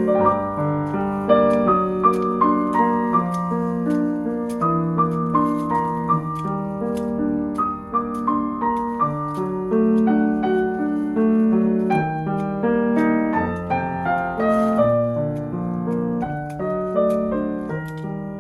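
Background piano music, a gentle melody of held notes over a low accompaniment.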